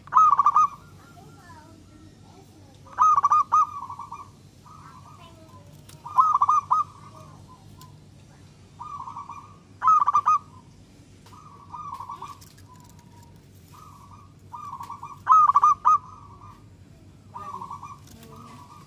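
Zebra dove (perkutut) cooing its song: short phrases of rapid staccato coos repeated every two to three seconds, some phrases loud and others softer.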